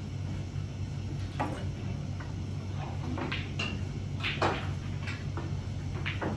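A string of short clicks and knocks from snooker balls and cue on the table, the loudest about four and a half seconds in, over a steady low hum.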